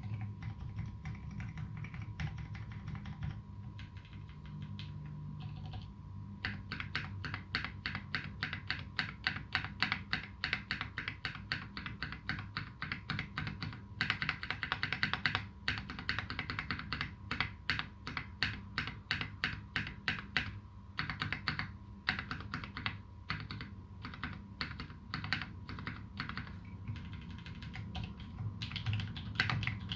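Typing on a Duck Jetfire custom mechanical keyboard with lubed Massdrop Holy Panda tactile switches (clipped sliders) and GMK keycaps: scattered keystrokes at first, then fast continuous typing from about six seconds in, loosening into shorter bursts in the second half. A faint steady hum runs underneath.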